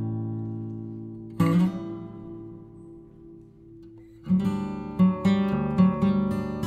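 Background music on acoustic guitar: a strummed chord rings and fades, a second chord fades out, then a steady strumming rhythm starts about two-thirds of the way in.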